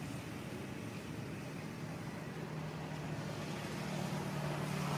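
A steady low motor hum, like a vehicle engine running in the background, growing gradually louder.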